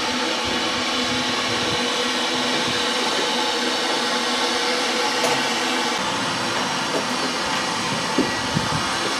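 A steady, loud mechanical hiss with a hum of several steady tones under it, unbroken throughout, with a couple of small knocks near the end.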